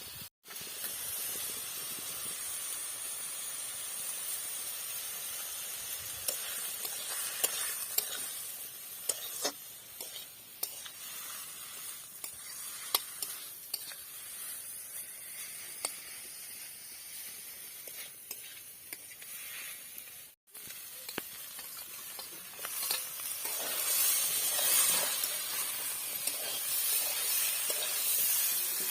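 Food frying in hot oil in a pan, sizzling steadily while being stirred, with scattered clicks and scrapes of the spoon against the pan. The sizzling grows louder near the end.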